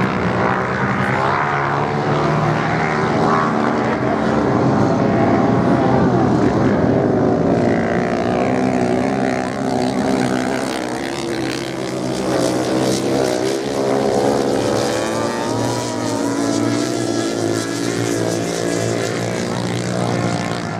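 A pack of racing motorcycles with their engines running hard together, the pitch rising and falling as the riders work the throttle through the bends.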